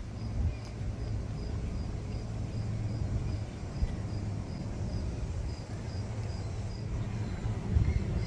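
Outdoor city street ambience: a steady low rumble like distant traffic, with a faint high chirp repeating a few times a second.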